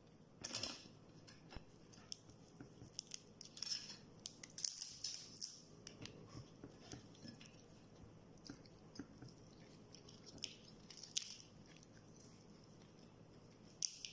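Metal spoon scraping and clicking inside a cooked crab shell as the meat and fat are scooped out, with small crunches and chewing. Short, irregular scrapes and clicks, heaviest about half a second in, around four to five seconds, around eleven seconds and just before the end.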